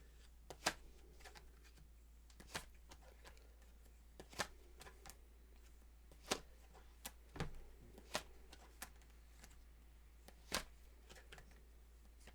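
Tarot cards being handled: faint, separate light snaps and taps at irregular intervals, about one to two seconds apart, over a low steady hum.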